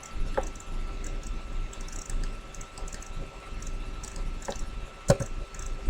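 Scattered computer keyboard and mouse clicks, a few taps spread out with one sharper click about five seconds in, over a faint steady hum.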